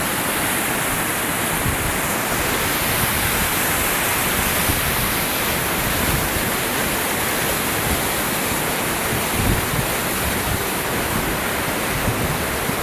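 Steady rush of fast river rapids, a loud, even roar of churning water.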